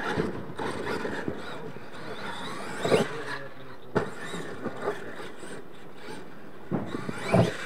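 Radio-controlled monster truck driving and revving on a dirt track, its tyres scrabbling over the dirt, with a few sharp knocks from bumps or landings: about three and four seconds in, and near the end.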